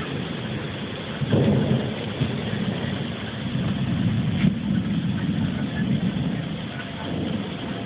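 Thunder rumbling over steady rain, the rumble swelling about a second in.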